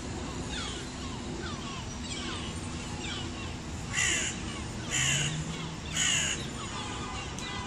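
A crow cawing three times, about a second apart, harsh and loud, over small birds chirping steadily in the trees.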